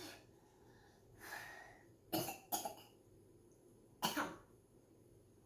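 Short bursts of breath from a person: one longer breathy puff, then three short, sharp bursts, the last near the end.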